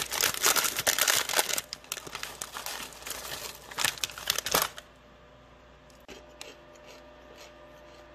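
Crinkly snack packet being torn open and rustled, a dense crackle for the first five seconds or so, then only a few faint ticks.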